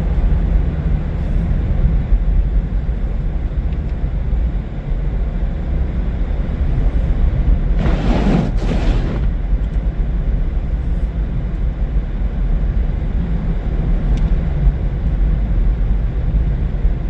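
Car driving on a snowy road, heard from inside the cabin: a steady low rumble of engine and tyres with a noisy hiss. About eight seconds in there is a brief, louder whoosh.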